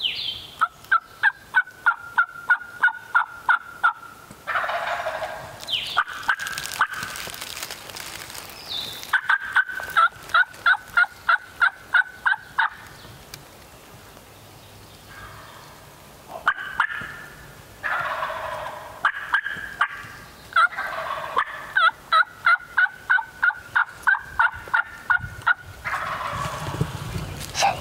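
Wild turkeys calling close by: three runs of loud, evenly spaced yelps at about four a second, with gobbles rattling out in between.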